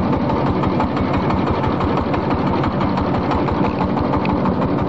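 A river boat's engine running steadily with a fast, even chug.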